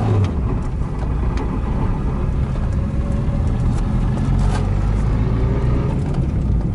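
Lada VAZ-2112 driving, heard from inside the cabin: steady engine and road drone.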